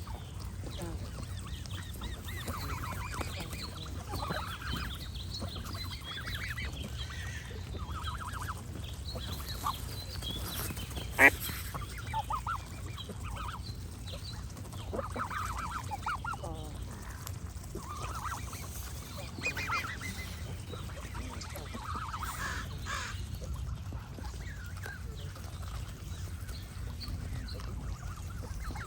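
Geese honking again and again, short nasal calls scattered throughout, over a steady low rumble. About eleven seconds in, one brief sharp sound stands out much louder than the rest.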